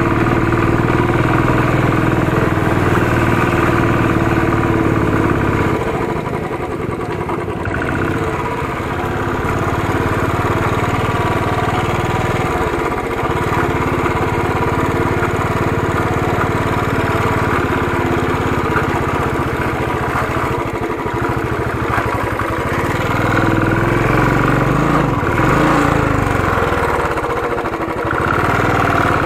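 Royal Enfield single-cylinder motorcycle engine running under way. Its note sags and picks up again twice as the throttle is eased and reopened.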